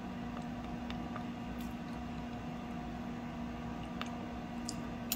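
A steady low mechanical hum with one constant tone, like a kitchen appliance or fan running, with a couple of faint small clicks, one about four seconds in and one near the end.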